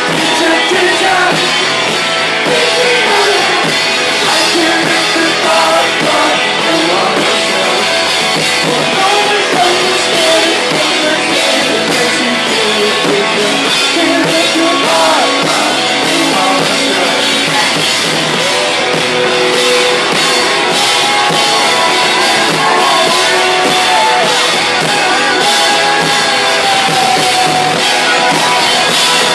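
Live rock band playing loud, with drums, guitar, keyboards and a singing voice, recorded from within the crowd at a concert.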